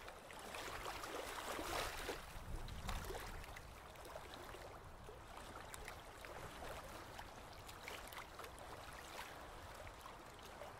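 Faint, steady water sound: gentle lapping and bubbling with scattered small ticks, a little louder in the first three seconds.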